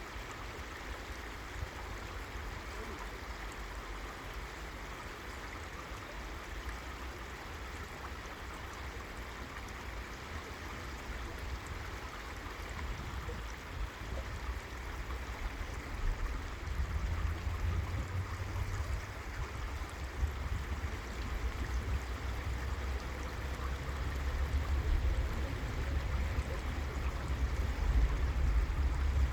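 A river flowing steadily, giving an even rushing hiss of moving water. A low rumble underneath grows louder from about halfway through.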